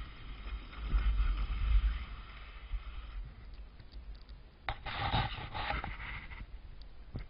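Touring skis hissing over snow, with wind buffeting the camera microphone, then a louder scrape of the skis across the snow about five seconds in that lasts over a second, and a short knock near the end.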